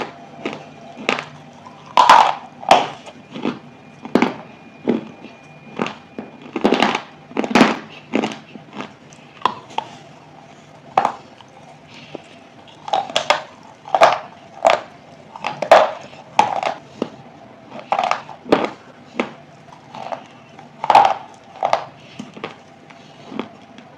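A person biting and chewing a hard, chalky material close to the microphone: a string of sharp, irregular crunches, about one or two a second.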